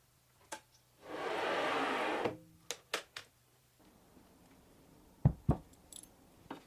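Handling noises on an aluminium saw carriage: a rushing slide lasting just over a second, a few light clicks, then two sharp knocks about a quarter second apart as a part is set down on the carriage.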